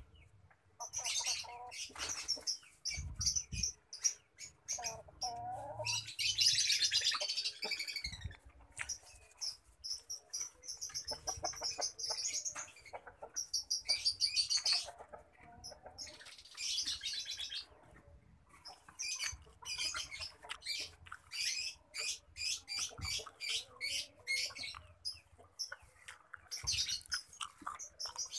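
Small birds chirping in dense, rapid runs of high calls that break off and start again every few seconds.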